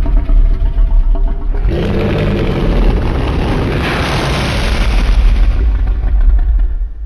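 A Godzilla Monsterverse film sound effect: a loud, deep rumble that swells into a louder, hissing blast about two seconds in, then dies away at the end.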